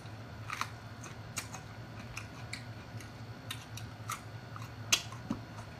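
Close-up crunching of a raw jalapeño pepper being bitten and chewed: scattered sharp crisp crackles, about one a second, the loudest near the end.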